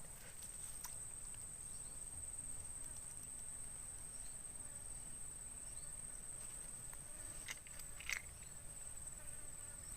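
Insects droning in one steady high-pitched tone, with a few faint clicks or taps, two of them about seven and a half and eight seconds in.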